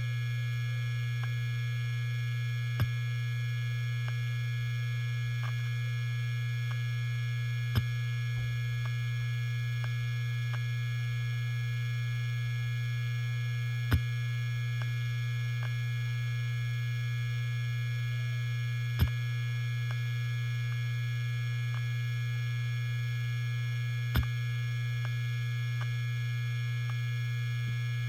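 Helium-filled hard disk drive spinning with a steady low hum. A sharp click from the heads comes about every five seconds, five in all, with fainter ticks between them.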